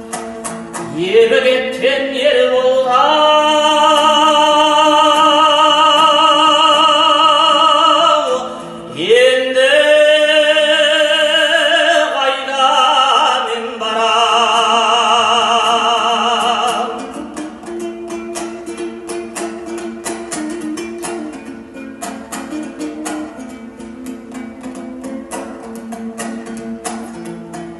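A singer holding long, wavering notes over dombra accompaniment, in two phrases that each open with an upward swoop. For the last ten seconds or so the voice drops out and the dombra strums on alone, quick and even.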